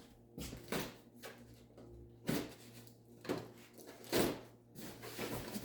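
Coffee grinder parts and packaging being handled and set down: several short knocks and rustles, the loudest about four seconds in.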